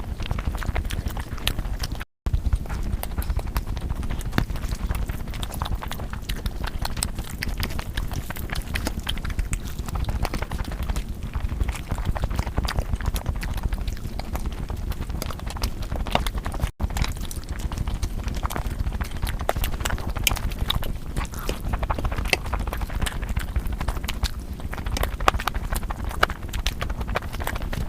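Close-miked eating sounds: steady chewing with a dense run of wet clicks and mouth smacks. It breaks off abruptly for an instant twice, about two seconds in and again near seventeen seconds.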